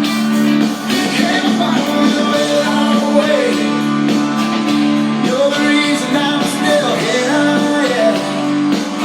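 A song with guitar and a singing voice, played as background music.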